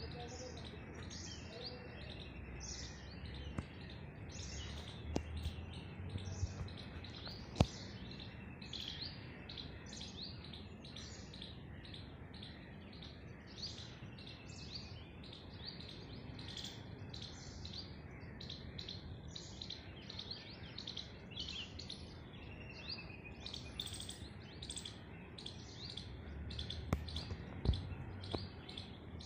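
A chorus of wild birds chirping and calling, with many short high-pitched notes overlapping throughout, over a low steady rumble. A few sharp clicks stand out, the loudest about seven and a half seconds in.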